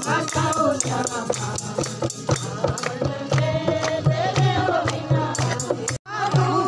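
Devotional folk singing by a group of voices over a steady dholak beat and jingling, rattling percussion. The sound cuts out abruptly for a moment about six seconds in.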